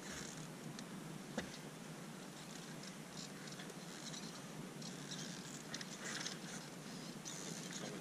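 Faint rustling and scuffing of boots, dirt and brush as a dirt bike is manhandled on foot up a steep wooded trail, with a single sharp knock about a second and a half in.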